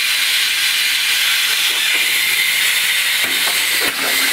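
Air hissing steadily out of a puncture in a tubeless mountain-bike tyre; the hole is too big for the sealant to close, so the tyre is going flat. A few light knocks from handling the wheel near the end.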